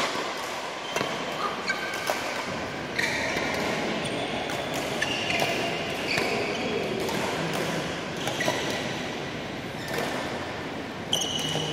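Badminton rallies: rackets hitting a shuttlecock in a string of sharp smacks, with short, high squeaks of court shoes on the court mat between them.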